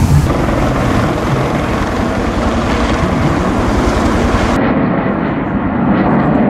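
Helicopter flying overhead, its rotor and engine noise steady and loud. About four and a half seconds in it cuts to a duller aircraft engine sound, with less hiss up high.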